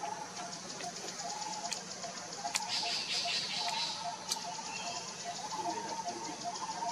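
Outdoor forest ambience: insects trilling as a fast, even high ticking, about ten ticks a second, with a repeated short piping call a few times a second and a brief high buzz about three seconds in.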